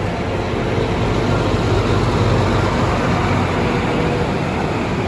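A large bus's diesel engine running close by, a steady unbroken sound.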